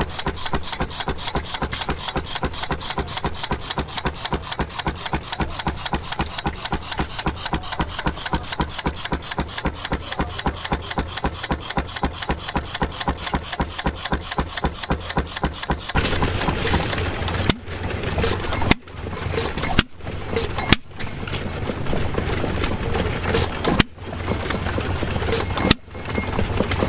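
Antique gas engine running with a steady, rapid, even exhaust beat. About two-thirds of the way through, the sound changes to a louder, busier engine noise, interrupted several times by brief gaps.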